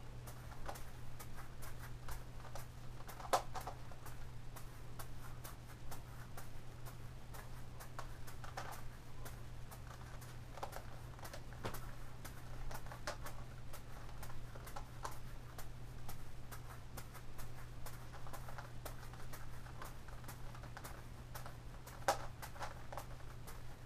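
Plastic clicking and rattling of a Gigaminx puzzle being turned, mixed with soft catches of a juggling ball in the hand, irregular and continuous, with two sharper clicks. A steady low hum runs underneath.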